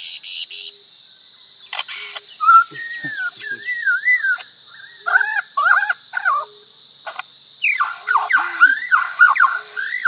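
Superb lyrebird singing a run of mimicked calls: a wavering whistled phrase, then short whistled notes repeated in pairs, then a rapid jumble of varied calls near the end. A steady high hiss runs underneath.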